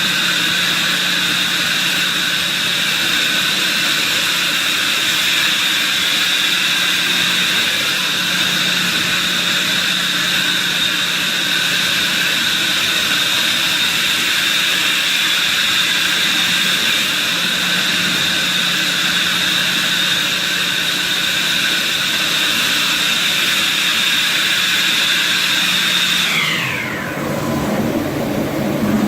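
High-speed spindle motor of a HOMAG BOF 41/K CNC machining center running at full speed, a steady high whine over a hiss. Near the end it winds down, the whine falling in pitch and fading out.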